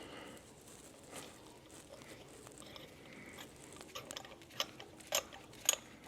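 Light scattered clicks and taps of hand tools and small parts being handled, with a few sharper clicks about four seconds in.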